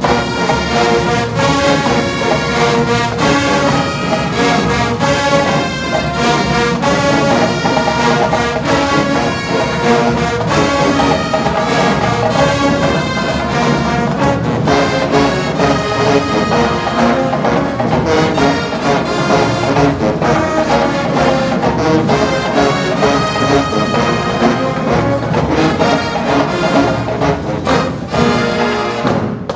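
Show-style marching band playing loudly, full brass section with trombones and trumpets over the drumline. The music breaks off sharply just before the end.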